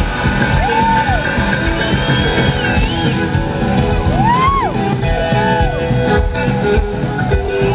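Live blues-rock band playing, with drums and electric guitars. A slide guitar swoops up and falls back in short phrases, about a second in and again around four to five seconds in.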